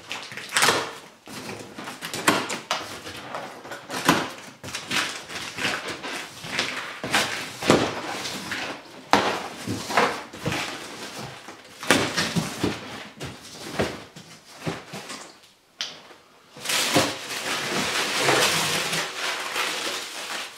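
A cardboard box being unpacked by hand: plastic strapping cut, cardboard and tape sliced and torn open, and brown packing paper crumpled and rustled, in an irregular run of sharp scrapes, rips and knocks. Near the end comes a longer, thicker rustle of paper.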